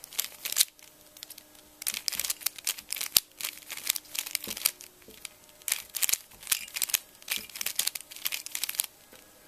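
A 3x3 Rubik's Cube being turned by hand, its layers clicking and clacking in quick runs of turns with short pauses between them, as the superflip sequence is worked through.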